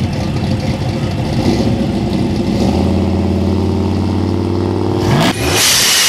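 A 2011 Ram 1500's Hemi V8 idling with a loping rumble, then held at a steady raised rpm from about three seconds in. The rpm climbs just before five seconds, and the engine gives way to a loud whooshing intro sound effect near the end.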